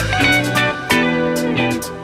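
Background music led by guitar, with plucked notes over a steady beat.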